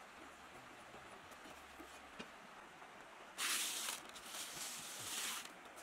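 Small gravel being swept by hand across a perforated metal sieve: two short scraping rustles about three and a half seconds in, after a faint tick.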